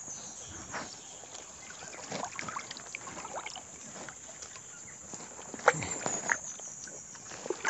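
Water sloshing and dripping as a wire-mesh fish trap is lifted out of shallow floodwater, with scattered light clicks and knocks from the mesh and one sharper knock late on.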